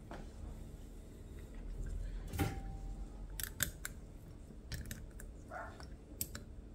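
Scattered light metallic clicks and knocks of a hand tool being fitted into a Brembo brake caliper piston and handled on the caliper. One knock, about two and a half seconds in, rings briefly.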